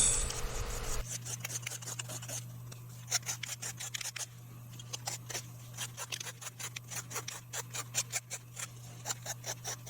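Small hand file rasping over a hardened super glue and carbon buildup on an ebonite pipe stem, quick irregular strokes of a few per second, shaping the rebuilt bit and button.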